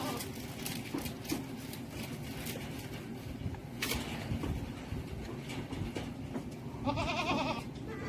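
A domestic goat bleating once near the end, a single quavering call, over a steady low background rumble, with a sharp click a little before the middle.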